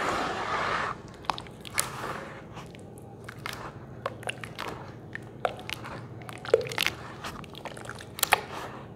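Hands squeezing and kneading a thick wet sand paste in a water-filled basin: a sloshing swirl in the first second, then irregular wet squelches and sharp sticky pops.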